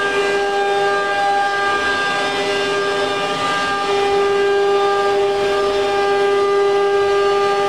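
Automatic-tool-change spindle of a wood CNC router running at speed: a steady high whine with several overtones, a little louder from about four seconds in.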